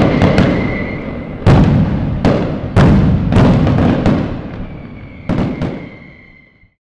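Fireworks bursting: a string of about eight loud bangs, each trailing off in a rumble, with a thin steady whistle under some of them. The sound fades and cuts off shortly before the end.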